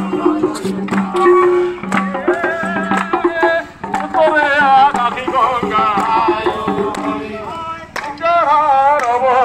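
Indian devotional folk music: pitched hand-drum strokes in a steady rhythm, with singing whose pitch wavers, coming in strongly about four seconds in and again near the end.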